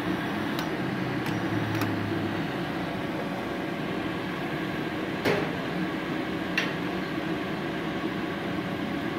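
Steady hum of a Multipro MIG-MAG 250NF G-KR inverter welder powered on and idling, its cooling fan running, with a couple of light clicks about five and six and a half seconds in.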